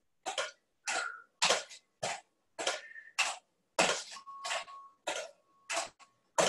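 Roller skate toe stops tapping and clattering on a concrete floor as a skater steps from one toe stop to the other: a steady run of short knocks, a little under two a second, with dead silence between them.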